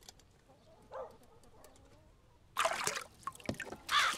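Water poured from a mug over bare feet, splashing onto a stone step in uneven gushes, starting about two and a half seconds in.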